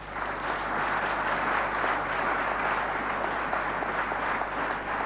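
Audience applauding, a dense patter of many hands that builds up quickly at the start and holds steady.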